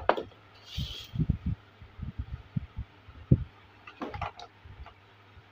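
Handling sounds of a small toy cooking pot being moved and set down on a table: soft low thumps, one firmer knock about three seconds in, and a few light clicks near the end.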